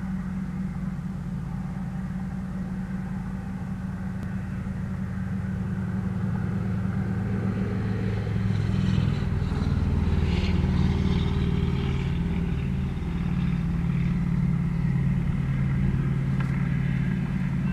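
Low, steady drone of approaching GE ES44 diesel locomotives, growing louder about halfway through as the train draws near.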